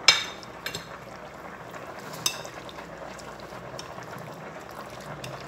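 A spoon mixing chicken pieces into a wet marinade of spices, vinegar and yogurt in a bowl, with a sharp ringing clink of the spoon against the bowl right at the start and a couple of lighter clinks later.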